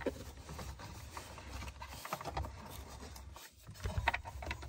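Handling noise as a hand works up behind the under-dash trim: rustling and rubbing against plastic panels and wiring, with a few light clicks and taps.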